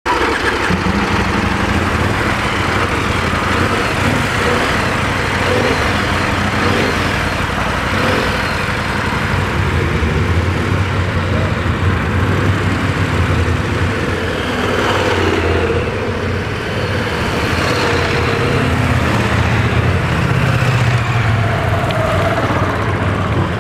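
Several KTM motorcycle engines idling together, with occasional revs as the bikes move off.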